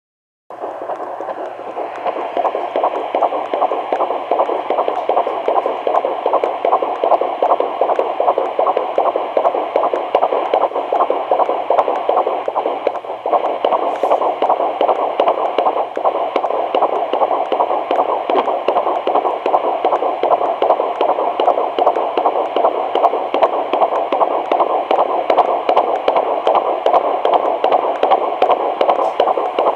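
Fetal heartbeat at 16 weeks of pregnancy, picked up by a fetal Doppler as a fast, steady whooshing pulse of about 150 beats a minute. It is going strong and starts about half a second in.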